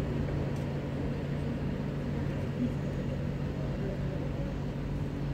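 Steady low urban background rumble with a constant low hum running under it, and no distinct events.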